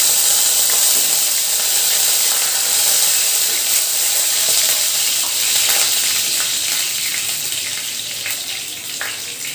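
Hot oil sizzling in a kadai as a tempering of dried red chillies, mustard and cumin seeds and fresh curry leaves fries, with scattered crackles and a wooden spatula stirring it. The sizzle slowly dies down toward the end.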